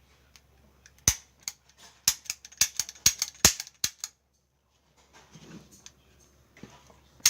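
Toy cap pistol fired in quick succession: about nine sharp snaps in under three seconds, a pause, then one more snap near the end.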